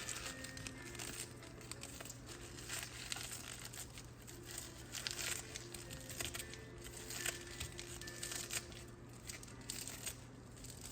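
Crinkling and rustling with many short crackles, as spinach leaves are handled and added to a bowl.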